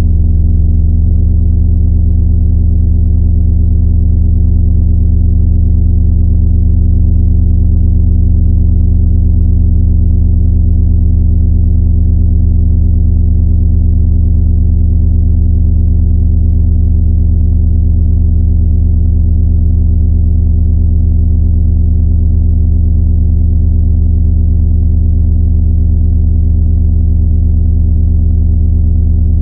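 Loud, steady low electronic drone: one deep, unchanging hum with faint overtones above it. About a second in, the upper overtones shift and the tone settles into a constant pitch.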